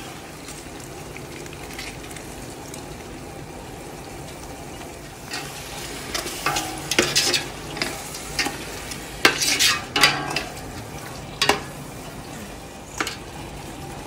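Masala frying in a large stainless steel pot with a steady sizzle, and from about five seconds in a steel ladle stirring and scraping through it, giving a string of sharp metal-on-metal scrapes and clinks.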